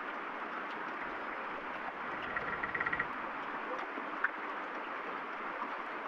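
Steady rain falling, a continuous even hiss. A little past two seconds in comes a short, rapid creak of wood, and a little later a single sharp pop.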